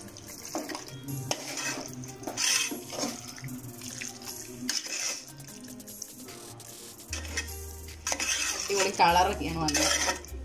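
A spoon scraping and clinking against a metal pot while chicken pieces are stirred through thick curry gravy. Background music with a low bass line comes in about seven seconds in.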